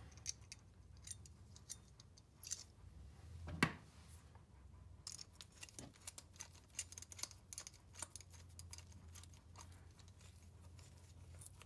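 Small metal clicks and taps as a hand screwdriver turns the screw that holds a well foot valve together inside its perforated metal strainer. Faint, with one louder knock about three and a half seconds in and a quick run of clicks through the second half.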